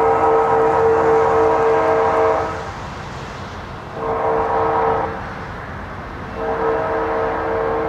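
Union Pacific diesel locomotive's air horn sounding from down the line: a long blast ending about two and a half seconds in, a short blast about four seconds in, and another long blast starting near the end. The long-long-short-long grade-crossing signal.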